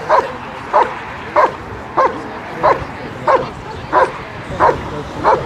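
A German Shepherd Dog barking in an even rhythm: about nine barks, roughly one every two-thirds of a second. This is the hold-and-bark of IPO protection work, the dog holding the helper in the blind by barking without biting.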